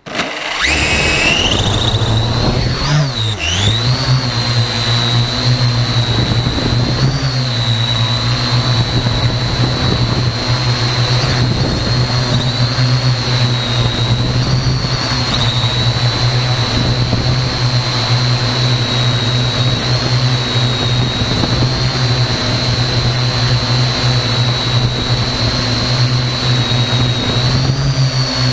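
Parrot AR.Drone quadcopter's electric motors and propellers, heard from a camera mounted on the drone itself. They start suddenly and rise in pitch over the first couple of seconds as the drone lifts off, dip briefly, then run as a steady high whine over a low hum, the pitch wavering slightly as it flies.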